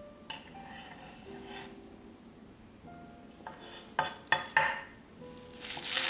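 Chef's knife cutting garlic chives on a wooden cutting board: a few sharp knife taps on the board about four seconds in, then a loud crisp slicing swish through the bunch near the end. Soft background music underneath.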